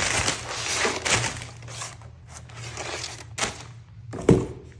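Plastic packaging rustling and crinkling as it is handled, busiest in the first two seconds, then a few light knocks and one louder thump near the end.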